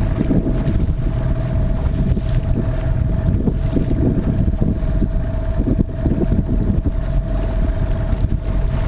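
Wind buffeting the microphone and waves splashing against the hull of a small boat trolling under a running outboard motor through choppy water, with a thin steady whine throughout.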